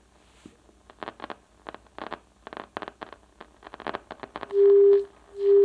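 A run of small clicks and crackles as the tuning knob of a 1937 Philips 461A valve radio is turned. Near the end the radio's speaker comes in twice, each time for about half a second, with a loud steady 400 Hz test tone. This is the signal generator's modulated 1442 kHz signal being tuned in.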